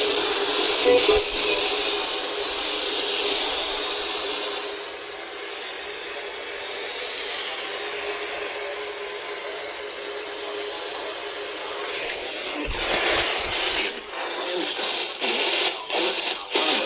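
Hiss of radio static from a NOAA weather radio receiver, with a faint steady tone under it. About thirteen seconds in, the hiss turns rougher and breaks into uneven crackles.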